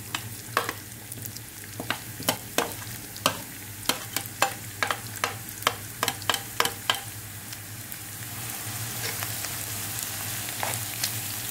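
Diced red onions going into hot oil in a nonstick frying pan: a spatula taps and scrapes them out of a steel bowl in a quick run of sharp clicks over the first seven seconds. The oil then sizzles, growing louder from about eight seconds in as the onions fry and are stirred, over a steady low hum.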